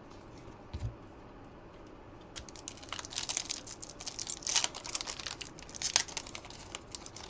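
Foil trading-card pack wrapper crinkling as it is opened by hand: a dense, irregular run of crackles and clicks starting a little over two seconds in.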